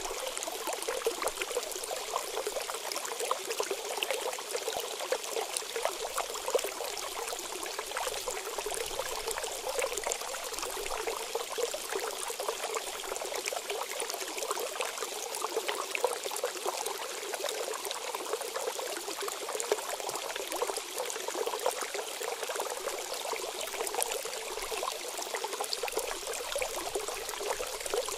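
Steady sound of running water: an even, unbroken noise full of tiny crackles, with no voice or music.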